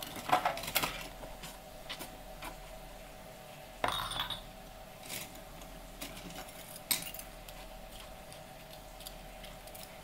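Dishes and cutlery clinking and clattering as they are washed by hand at a kitchen sink: scattered knocks, several in the first second, a louder clatter about four seconds in and a few lighter clinks later.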